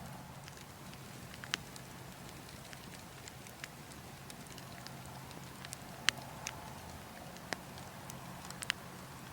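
Burning logs crackling, with sharp pops scattered irregularly through, the loudest about six seconds in, over a steady background of wind.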